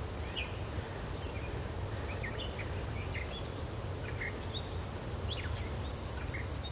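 Outdoor forest ambience: a steady high insect drone with many short, scattered bird chirps, over a steady low rumble.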